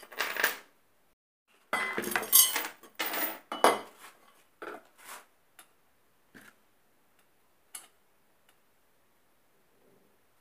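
Metal chain links jangling and clinking as the chain is handled on a tabletop, a dense rattle for the first few seconds that thins to a few scattered single clinks.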